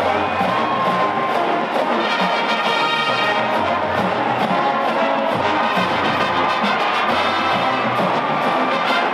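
Full college marching band playing, the brass section (trumpets and trombones) carrying sustained chords over a steady drum beat.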